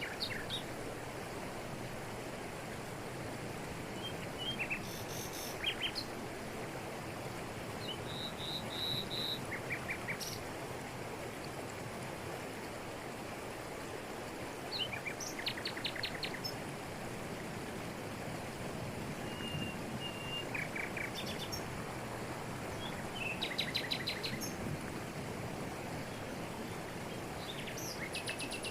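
Steady rush of a jungle waterfall pouring over rocks. Birds call now and then above it with short, fast trills and chirps, one a brief held whistle about eight seconds in.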